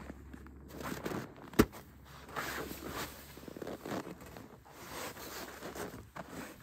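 Rustling of a fleece jacket and shuffling footsteps as a person moves up close and sits down on a wooden platform edge, with one sharp knock about one and a half seconds in.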